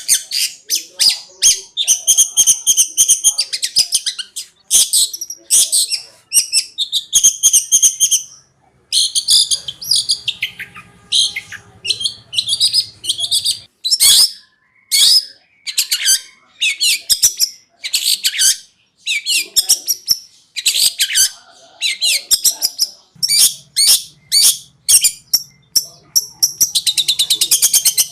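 Long-tailed shrike (cendet) singing a fast, varied song of rapid chattering notes and trills in quick phrases, the stuttering style bird keepers call 'konslet'.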